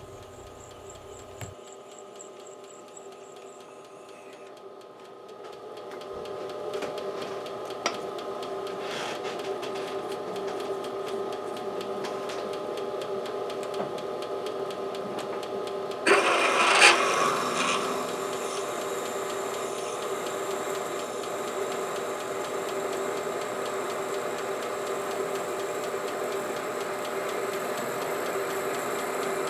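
Metal lathe running with a steady hum and a couple of constant tones as a drill and then a 3/8-inch reamer are fed into the spinning workpiece to finish the bore. The sound grows louder about five seconds in, and a brief, louder, noisier stretch comes a little past halfway.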